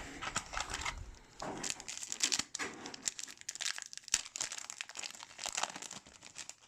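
Hockey card pack wrapper crinkling as it is torn open and handled: a dense run of sharp crackles that thins out near the end.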